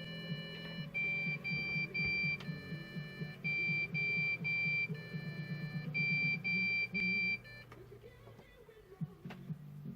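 PC motherboard speaker beeping a POST beep code at power-on, the sign of a hardware error found at start-up. It goes in a repeating cycle of one longer tone of a different pitch followed by three short beeps, and stops about three-quarters of the way through, over a low steady hum.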